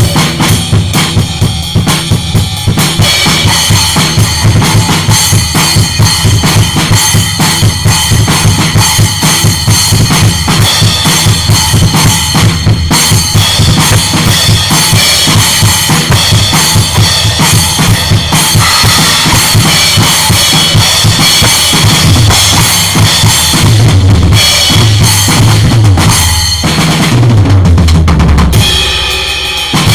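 Maple drum kit played continuously: a busy groove of bass drum and snare under washing cymbals. Near the end, a tom fill runs down from higher to lower drums, with a brief drop just before it resumes.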